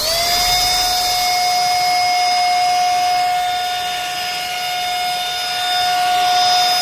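Cordless handheld car vacuum cleaner switched on: its motor spins up in a fraction of a second, then runs with a steady high whine over a rush of air.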